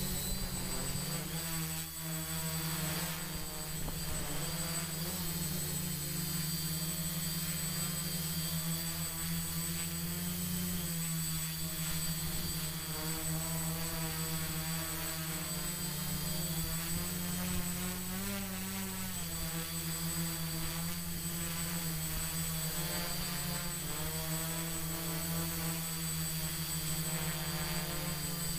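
Electric motors and propellers of a small drone in flight: a steady whine whose pitch keeps drifting up and down as the motors change speed, with a thin high tone held underneath.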